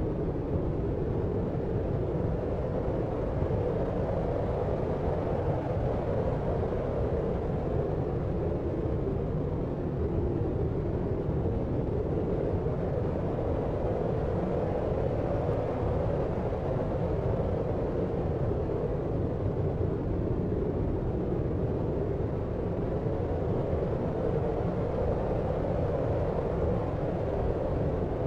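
Deep sleep noise: a steady, dark rushing hiss weighted toward the low end, rising and easing in slow gentle swells.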